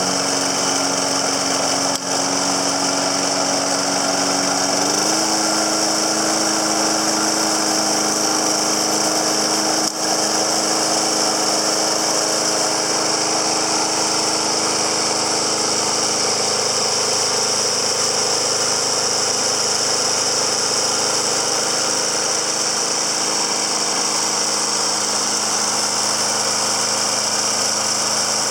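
Snapper Big Six walk-behind mower's 6 hp Briggs & Stratton engine running steadily. Its speed steps up slightly about five seconds in, then holds.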